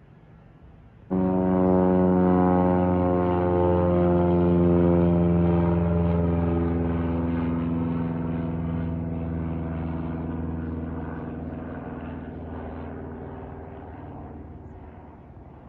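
Propeller airplane passing low overhead: a loud, many-toned engine and propeller drone that starts abruptly about a second in, then slowly drops in pitch and fades as the plane moves away.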